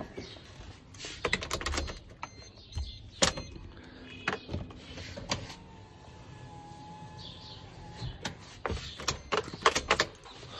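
Car's electric window motor whining steadily for about two seconds as the rear window glass is raised, after a few clicks and knocks.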